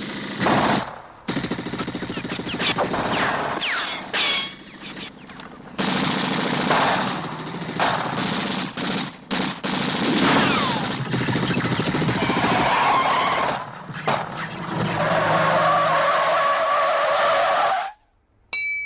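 Vehicle chase sounds: car and truck engines running and tyres skidding on dirt, with several sharp cracks. Near the end the sound drops out abruptly.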